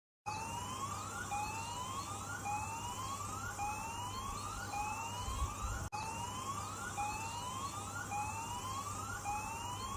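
Electronic tsunami warning siren sounding a repeated rising whoop, about one sweep a second, a public alert to evacuate for a tsunami threat.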